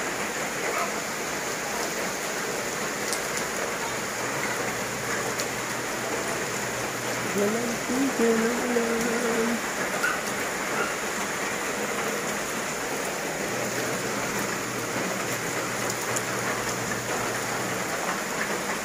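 Steady tropical rain falling on leaves and muddy ground, an even unbroken hiss. A short pitched call rises briefly over it about eight seconds in.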